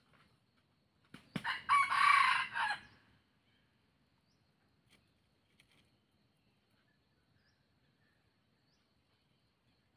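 A junglefowl-type rooster crows once, a short crow of under two seconds beginning about a second in.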